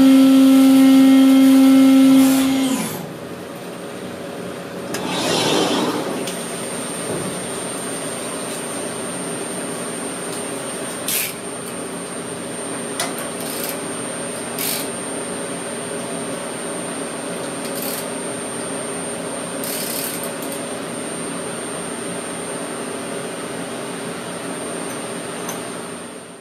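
Brother S700X1 CNC vertical machining center milling. A loud, steady pitched tone with overtones sounds for the first few seconds and then cuts off, followed by a quieter steady machine hum with a brief noisy surge about six seconds in and several short hisses.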